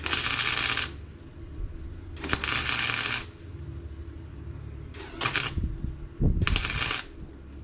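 Harbor Freight wire-feed welder laying a weld bead on a steel radiator bracket in four short bursts, each a loud crackling sizzle of the arc, with a steady low hum between them.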